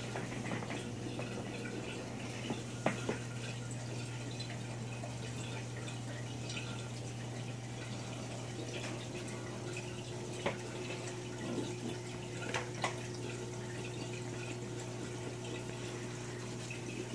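Aquarium filter running: steady trickling water with a constant low hum, and a few short drips or clicks.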